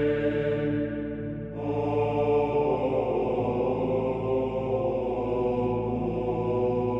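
Background music of sustained, drone-like chords, with a fuller layer coming in about a second and a half in.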